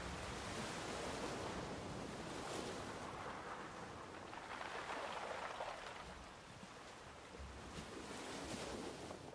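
Sea waves washing in slow swells, fading out near the end.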